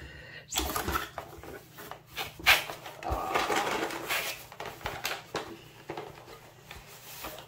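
Unboxing handling sounds from a diamond painting kit box and its plastic-wrapped contents: scattered knocks and clicks with rustling, the sharpest knock about two and a half seconds in.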